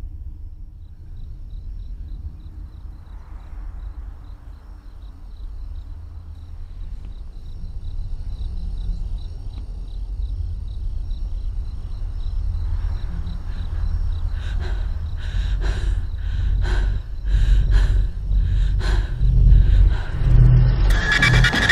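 Thriller film sound design: a deep, low rumbling drone that slowly builds in loudness, with a faint rapid ticking high above it. From about two-thirds of the way through, a run of sharp hits joins in, growing louder and loudest near the end.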